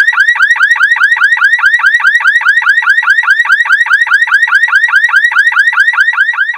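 Loud electronic warbling tone, like a car alarm: the same rising-and-falling chirp repeats about six or seven times a second, and it fades out right at the end.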